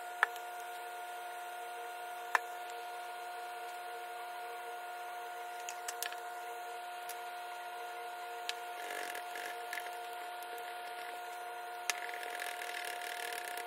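Light clicks and taps of a plastic epoxy bottle and plastic cups while two-part epoxy is poured and measured, then a wooden stir stick scraping round inside a plastic cup near the end. Under it all is a steady hum of several fixed pitches.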